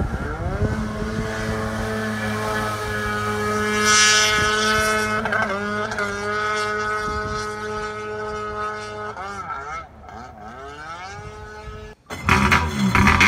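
Personal watercraft engine with an aftermarket TDR waterbox exhaust, running at high revs as it speeds across the water, its pitch dipping and rising a few times with throttle changes. After a sudden cut near the end, a louder and rougher engine sound takes over.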